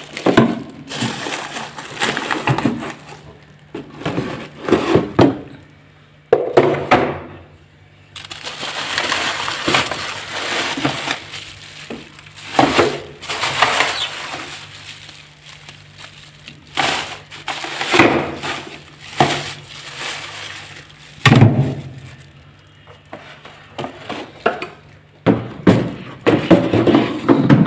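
Rummaging in an iced-up freezer: repeated knocks, clinks and crackling as frozen packs and ice are pried loose and broken apart.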